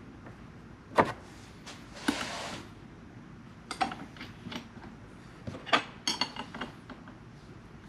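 Scattered clicks, knocks and ringing metallic clinks of small tools and metal parts being handled on a workbench, with a short scraping rush about two seconds in; no power tool is running.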